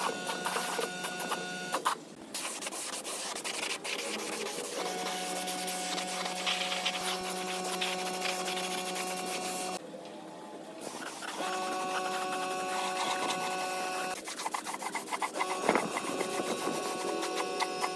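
Paint spray gun spraying primer onto engine parts: a steady hiss of air and paint with a steady hum under it. It breaks off briefly about two seconds in and again around ten seconds in.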